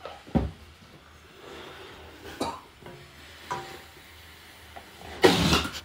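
A wooden utensil stirring in a stainless steel pot, knocking against it a few times, the first knock the strongest. Near the end comes the loudest sound, a half-second rush of air.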